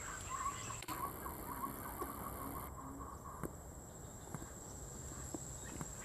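Faint outdoor ambience: a steady high-pitched insect drone, with a quick run of short wavering calls during the first two to three seconds and a few faint clicks.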